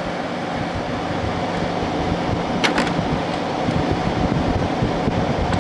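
Thomas Edison 6000 BTU room air conditioner (model J6M1Q-A) running on high cool: a steady rush of air from its strong fan over a low, even hum. Two brief clicks come about two and a half seconds in.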